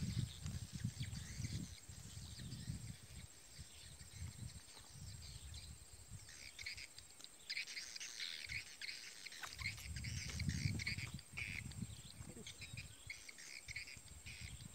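Outdoor pond-side ambience: small birds chirping and insects calling, busiest in the middle of the stretch, with low muffled rumbles near the start and again around ten seconds in.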